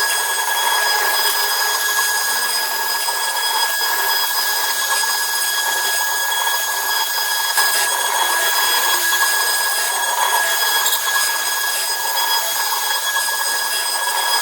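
CNC router spindle running steadily while cutting, a constant high whine of several fixed tones over a continuous hiss.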